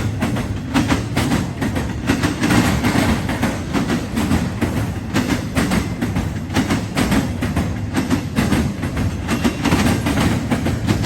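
CSX freight train rolling past, its car wheels clicking and clattering over the rail joints above a steady low rumble.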